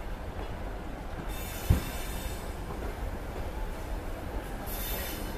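Passenger coaches rolling slowly past on a departing train, a steady low rumble of the wheels. There is one sharp knock about a second and a half in, and two short spells of high hissing wheel squeal, one near the start and one near the end.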